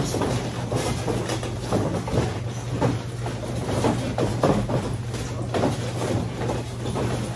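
Sparring in a boxing ring: gloved punches landing and bare feet shuffling and stepping on the canvas, making irregular thuds and slaps several times a second, over a steady low hum.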